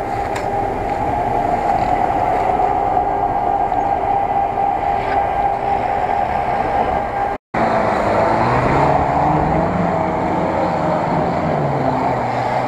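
Lada Niva's engine held at steady revs as it climbs a loose dirt slope, wheels spinning and throwing dust. After a break about halfway through, an off-road vehicle's engine revs up and down.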